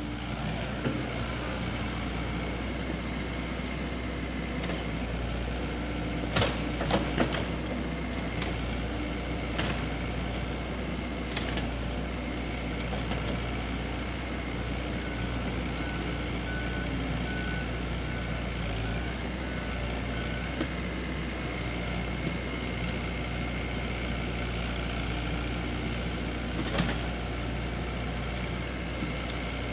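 Excavator engine running steadily, with a few short knocks from the working machine, several close together about six seconds in and one more near the end.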